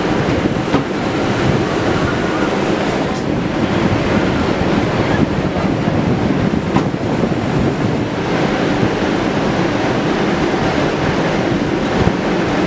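Steady wind buffeting the microphone, mixed with a constant hiss of water, with a few faint knocks.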